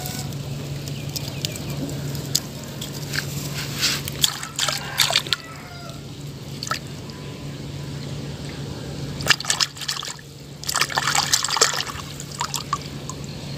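Hand sloshing and splashing in shallow water among reeds, in irregular bursts that are busiest about four to five seconds in and again from about nine to twelve seconds in.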